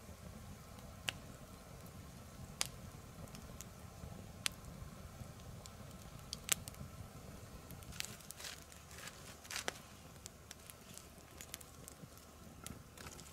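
Swedish torch fire, a split log burning from inside, crackling with sharp, irregular pops every second or two.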